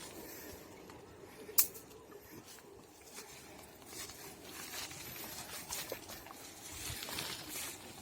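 Faint footsteps and rustling through grass, with one sharp click about one and a half seconds in.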